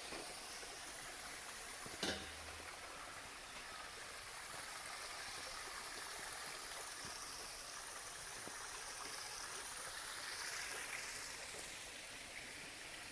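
Stream water running steadily, with a single sharp knock about two seconds in.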